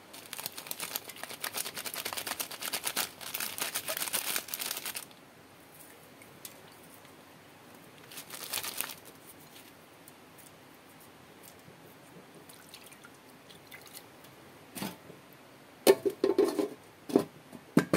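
Crinkling, crunching handling noise for about five seconds, again briefly a few seconds later, then a few dull knocks near the end.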